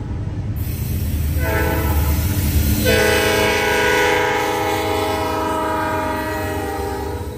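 Norfolk Southern diesel locomotive's air horn sounding a steady chord as the lead unit passes, blowing for the grade crossing: a shorter blast about a second and a half in, then a louder long blast from about three seconds in. Under it is the rumble of the locomotive's diesel engine and the train rolling by.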